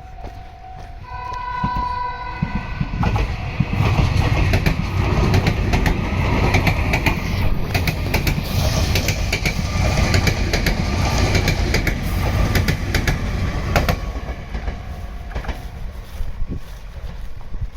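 Meitetsu 2000 series μSKY limited express passing a level crossing. A short horn blast comes about a second in. The train then passes loudly with wheels clicking over rail joints, fading near the end.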